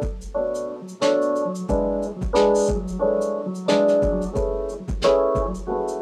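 Background piano music: a run of struck chords, each fading before the next, over a deep bass note.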